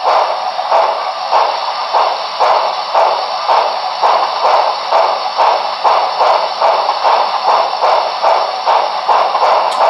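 Sound decoder of a Broadway Limited Paragon4 ATSF 4000 class 2-8-2 model steam locomotive playing steam exhaust chuffs through its onboard speaker, about two chuffs a second and evenly paced, as the model runs on a roller stand.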